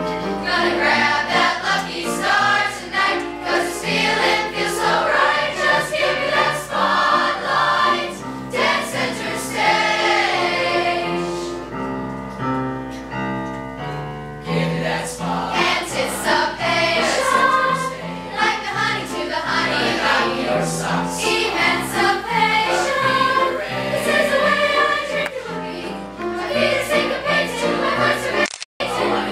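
Middle-school show choir of boys and girls singing a song together in harmony.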